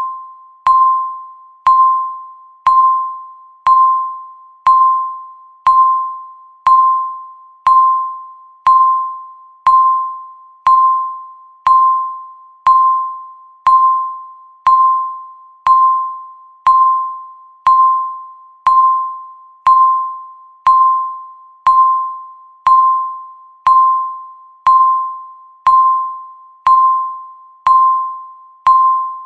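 Countdown timer's electronic beep marking each second: a short single-pitched tone that starts with a click and fades quickly, repeated evenly once a second.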